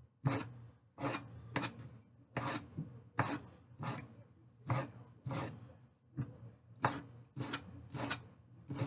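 Knife chopping shrimp into small pieces on a cutting board: sharp, irregular knocks of the blade against the board, about one or two a second, with a light scraping between strokes.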